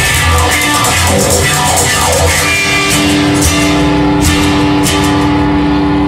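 Rock music instrumental passage with electric guitar, bass and drums. In the second half the drum hits thin out while a held guitar chord rings on.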